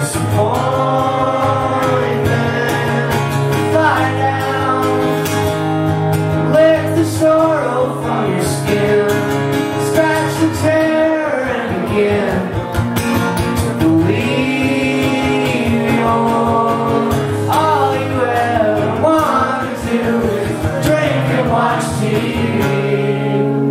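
Live solo performance: an acoustic guitar strummed steadily while a man sings a long, wavering melody over it.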